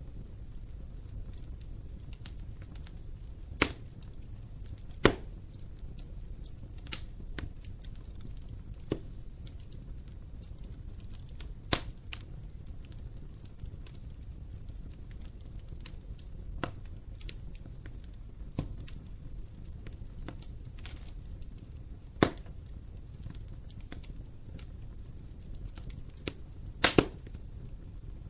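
Wood fire burning in an open fireplace: a low steady rumble of flame with sharp pops and crackles of burning wood at irregular intervals, a few of them loud, including a quick double pop near the end.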